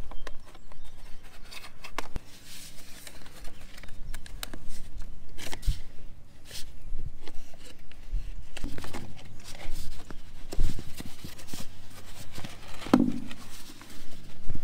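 Utility knife cutting through corrugated plastic drainage tile: irregular scraping and clicking as the blade works round the ribs. Near the end, the plastic tile rubbing and clicking as it is pushed onto a plastic wye fitting.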